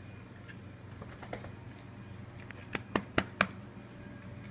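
Dog claws clicking on a tile floor: four quick sharp clicks close together about three seconds in, over a steady low hum.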